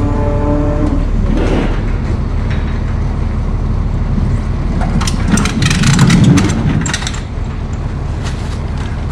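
Manual pallet jack carrying a wrapped pallet rolled across a steel diamond-plate box-truck liftgate, rattling and clanking for about two seconds about five seconds in. A steady low rumble runs underneath.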